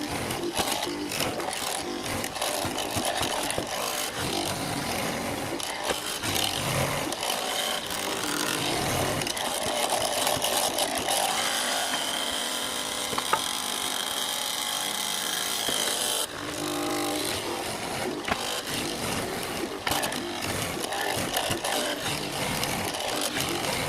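A power tool working wood. A steady high whine runs from about halfway through and cuts off suddenly about two-thirds of the way in.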